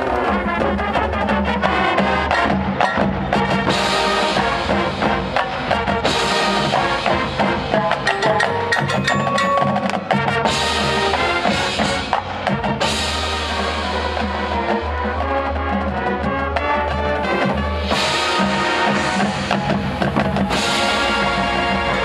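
High school marching band playing, brass and winds over a drumline with snare and bass drums, and front-ensemble mallet percussion and wood block.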